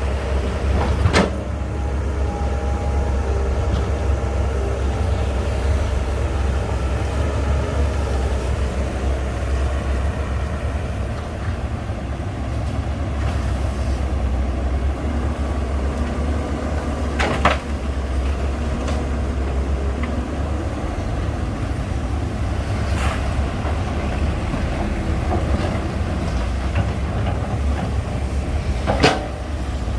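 Heavy diesel construction machinery running with a steady low rumble, with a few sharp metallic knocks, the loudest about a second in, past the middle and near the end.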